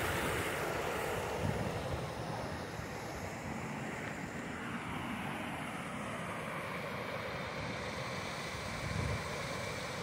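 Steady rushing of a mountain creek and waterfall, a little louder in the first second, with a couple of low wind thumps on the microphone.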